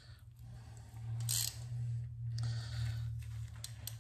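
A socket wrench and feeler gauge being handled at a motorcycle engine's tappet cuff bolt: a few light metallic clicks and a brief scrape about a second in, over a steady low hum.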